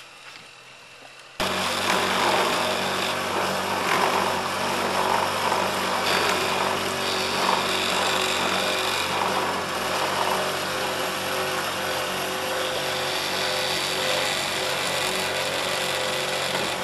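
Electric outboard (a 1.5 HP electric motor on an old 2.5 HP outboard's lower unit) running steadily with the boat under way: a steady motor whine over rushing water. It starts abruptly about a second and a half in.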